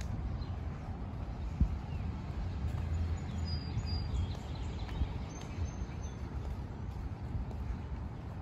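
Outdoor ambience: a steady low rumble, a sharp knock about a second and a half in, and a few faint high bird chirps in the middle.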